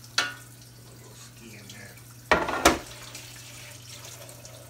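Kitchen sink tap running while whole trout are rinsed, with clattering knocks of a metal sheet pan handled and set down: one just after the start and the loudest pair about two and a half seconds in.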